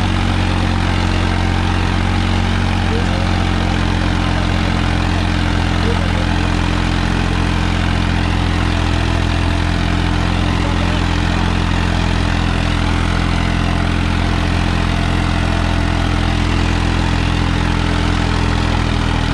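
Tractor diesel engine running steadily at an even speed, with no revving or change in pitch.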